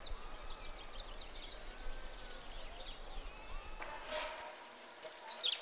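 Songbirds singing in quick runs of high, repeated sliding notes. About four seconds in comes a brief rush of water being poured from a metal kettle into a pot over a wood fire.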